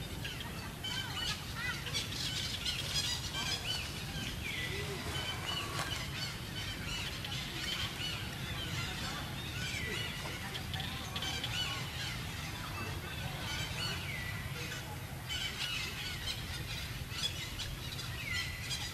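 Birds chirping and calling in many short, repeated calls, over a steady low hum of background noise.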